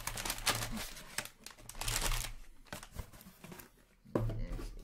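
Black foil trading-card packs crinkling and rustling as they are pulled from their box and handled, busiest in the first two seconds and then dying away.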